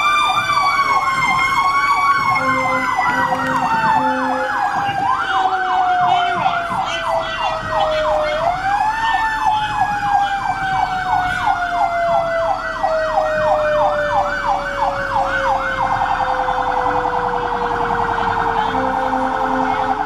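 Fire truck sirens heard from inside the cab. An electronic yelp sweeps about three times a second and switches to a faster warble near the end, over a slower wail that rises and falls, then winds steadily down through the second half. Short low horn blasts sound a few seconds in and again near the end.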